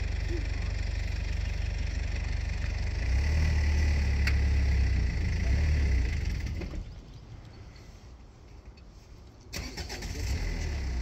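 Wind buffeting the microphone: a low rumble that swells for a few seconds, dies away for about two and a half seconds, then picks up again. There is one short click near the middle.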